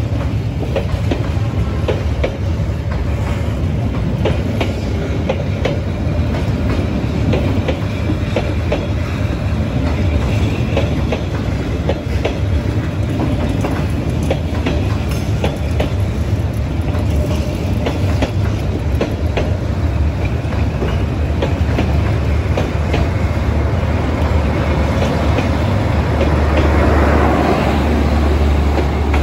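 Passenger coaches of a Vietnam Railways train rolling past close by, with a steady rumble and wheels clicking over the rail joints. Near the end a louder, deeper hum builds as the train's diesel generator car goes by.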